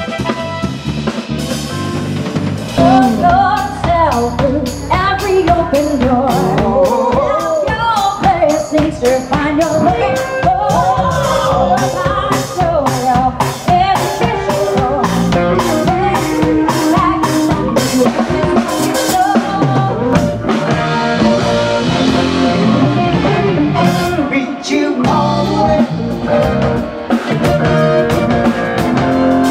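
Live band playing a song: singing over drum kit, keyboards, bass and electric guitar. The singing comes in about three seconds in.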